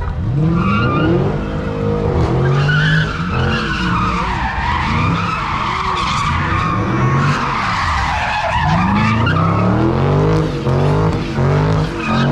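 A car spinning donuts in tyre smoke: its engine revs up and down again and again while the tyres squeal without a break.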